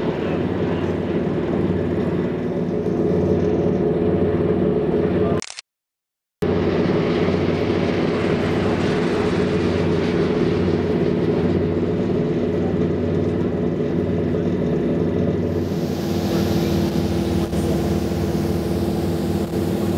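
Fireboat's diesel engines running with a steady, even drone. The sound cuts out for about a second around five seconds in, then carries on unchanged.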